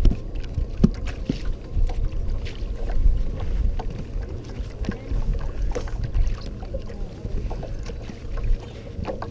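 Wind buffeting the microphone on a small fishing boat, with water slapping against the hull and scattered short knocks.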